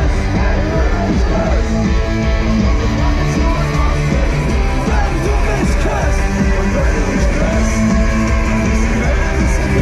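Loud live rock music from a concert, with guitars to the fore.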